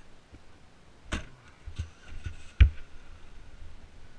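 Four separate knocks or thumps in a small room, the loudest about two and a half seconds in.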